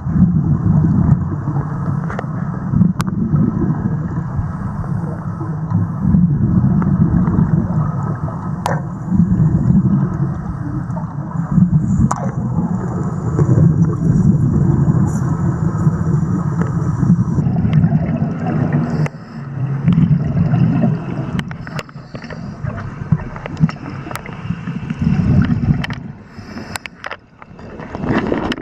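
Heavy bubbling and gurgling rumble heard underwater, swelling and easing every second or two, with scattered sharp clicks; typical of gas bubbles and diver exhaust during underwater wet arc welding. It eases somewhat after about two thirds of the way through.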